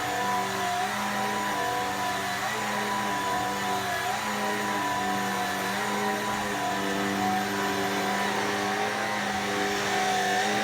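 Shark PowerFins WZ140 cordless stick vacuum running in high-power mode: a steady motor hum with small dips in pitch every second or two.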